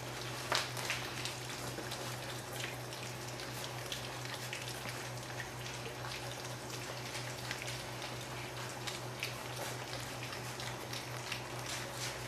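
Four-week-old Greater Swiss Mountain Dog puppies lapping and smacking at soft mush in a bowl: a steady stream of small, irregular wet clicks. A steady low hum runs underneath.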